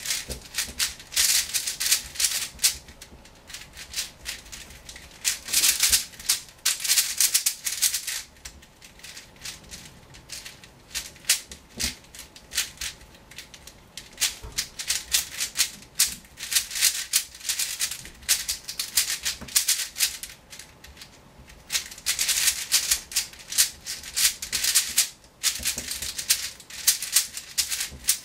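Moyu AoChuang 5x5 speed cube being turned fast: a rapid plastic clicking and clacking of the layers, in louder flurries of turns between quieter stretches.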